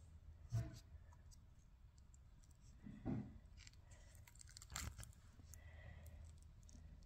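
Near silence with a few faint handling sounds from hands working slime and a plastic tub: a soft knock about half a second in, a short dull rustle around three seconds, and a sharp click near five seconds.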